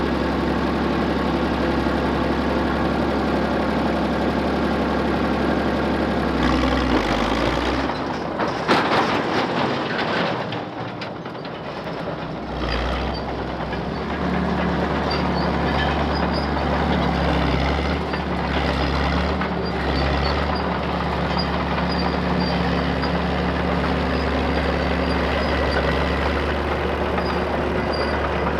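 Caterpillar No.6 track loader shovel's diesel engine running steadily as the crawler drives off a trailer. Its steel tracks clank and rattle about eight seconds in as it comes down onto the gravel, then the engine runs on while it moves across the yard.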